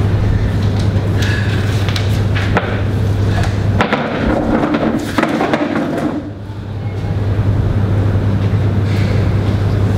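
Knocks and a scraping, rustling stretch about four to six seconds in as a person slumps from a chair down onto the floor by a desk, over a steady low hum.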